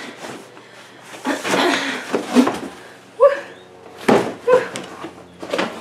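Cardboard packaging being handled: a product box slides and scrapes out of a cardboard shipping box, then several short knocks and thuds as the boxes are moved.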